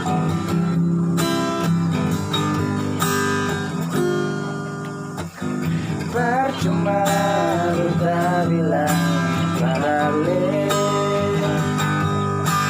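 Acoustic guitar strumming chords as a song's introduction. From about six seconds in, a wavering melody line joins over the strumming.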